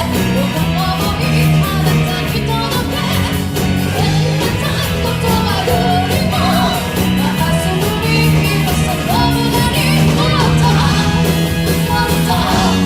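A rock band playing live, with a steady drum beat, sustained bass notes and a wavering melodic line over them.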